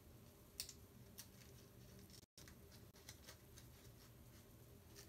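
Faint, scattered crinkles and ticks of folded paper being handled as origami modules are pressed together and their flaps slid into pockets. The sharpest tick comes about half a second in.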